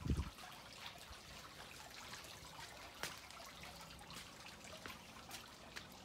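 Small wall fountain with a lion-head spout trickling faintly into its basin, with small drips and splashes. A brief low thump at the very start.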